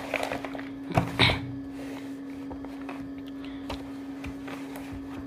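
A notebook page being turned and smoothed by hand: a few paper rustles and light knocks in the first second and a half, over a steady low hum.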